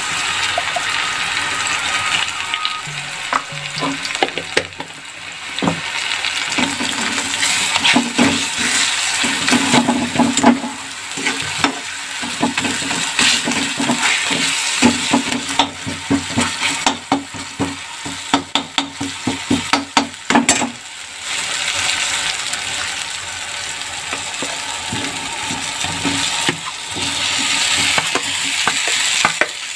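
Tomato and spice masala sizzling in hot oil in a kadhai while a metal ladle stirs and scrapes against the pan, giving many sharp clicks and scrapes. Near the end the sizzle swells as chopped potatoes are tipped into the pan.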